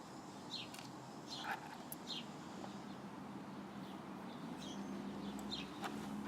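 Small birds chirping: a few short, quick descending chirps at irregular intervals, with a few faint clicks and a low steady hum beneath.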